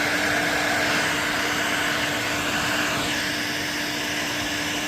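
Heat gun running steadily, a blowing hiss over a constant motor hum, while it heats cured epoxy to soften it. The tone of the hiss shifts slightly about three seconds in.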